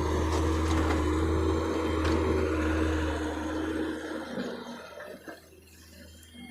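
Heavy machine engine running steadily with a low drone, fading away after about four seconds, with a few faint clanks.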